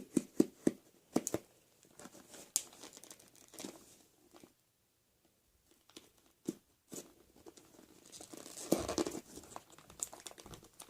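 Packaging of a trading card theme deck being torn open and handled, with quick sharp crackles at first, then scattered crinkling, a short quiet pause midway, and a denser stretch of crinkling and tearing near the end.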